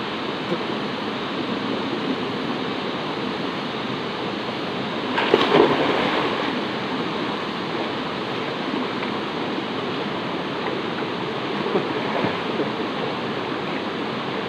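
Steady rush of a rocky forest stream flowing into a pool, with a loud splash about five seconds in as a person plunges into the water and smaller splashes later as he moves about and comes back up.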